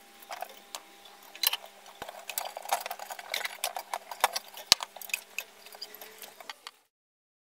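Electrolysis rust-removal bath in a washing-soda solution fizzing: gas bubbles streaming off the hatchet head and electrodes and popping at the surface in dense, irregular crackling clicks over a faint steady hum. It cuts off suddenly near the end.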